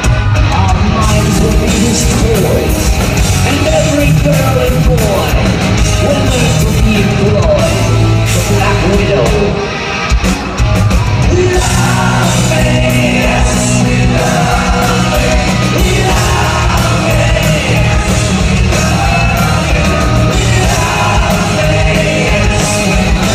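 Live rock band playing loudly, drums and band under a male lead singer's vocal, heard from the audience. The music drops back briefly about ten seconds in before coming back in full.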